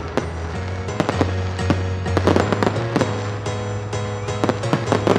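Aerial fireworks going off: sharp bangs and crackles at irregular intervals, over background music with a steady bass line.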